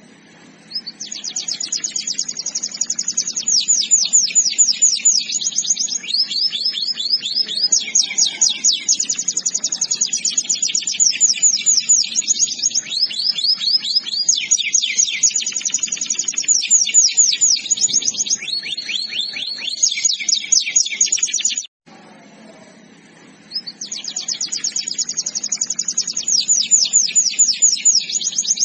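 Canary singing a long, high-pitched song of rapid trills and rolls, one run of repeated notes after another. It stops abruptly about 22 seconds in and starts again about two seconds later.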